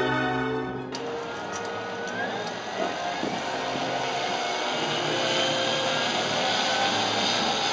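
Intro music cuts off about a second in, giving way to radio-controlled model aircraft flying, a steady noisy drone with faint rising motor whines.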